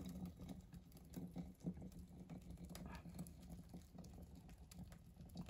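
Faint pattering of thick liquid dish soap pouring through a funnel into a plastic jug, over a low steady hum.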